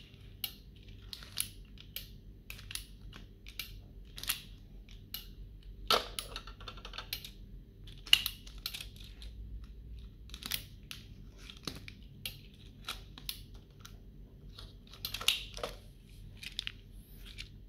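Irregular light plastic clicks and clacks from a toy grabber claw snapping and handling chocolate bar wrappers, with a louder knock about six seconds in.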